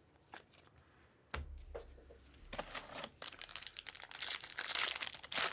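A foil trading-card pack wrapper being torn open and crinkled, after a single soft knock about a second in; the crinkling builds and is loudest near the end.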